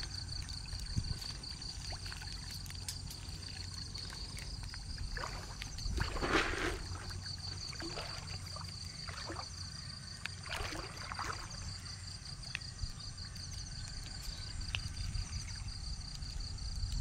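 Water swishing and splashing several times, loudest about six seconds in and again around eleven seconds, over a steady high, rapidly pulsing insect trill.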